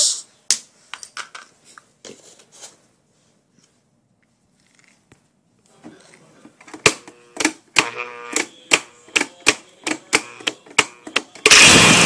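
A run of sharp clicks and knocks, then about eleven and a half seconds in a homemade bucket blender driven by a scrap motor switches on and runs with a loud, steady noise as it churns torn cardboard and screws.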